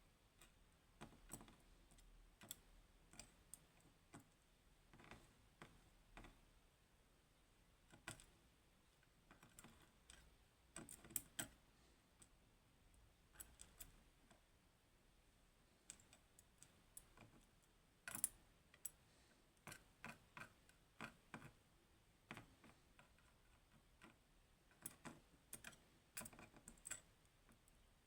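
Faint, irregular small clicks of the pins and parts taken out of a gutted Goal Grand V pin-tumbler lock being set down and moved around on a tray, sometimes several clicks in quick succession.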